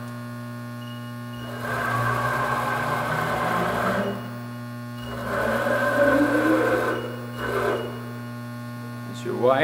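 ProtoTrak TRM CNC bed mill jogging its table under power: the axis drive motors and screws run in two moves of a few seconds each, the second starting with a rising whine, over a steady hum.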